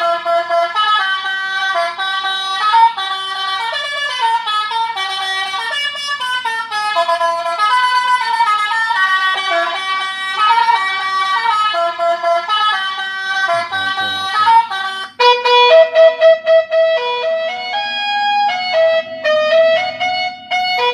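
Electronic 'basuri' telolet bus horn (an air-free knockoff) playing a melody through a horn speaker as a run of stepping, horn-like notes. About 15 seconds in it switches to a different tune of shorter, choppier notes.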